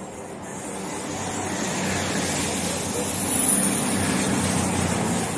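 A train running through the station: a rumble that builds to its loudest about three and a half seconds in, with a faint high whine falling in pitch in the middle, then eases slightly.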